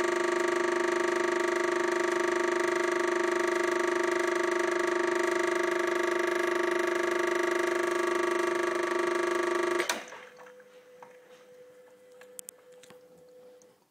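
Gaggia Classic espresso machine's vibratory pump buzzing steadily as it pushes water through the puck for a ristretto shot. It cuts off suddenly about ten seconds in as the shot is stopped, leaving a few faint clicks.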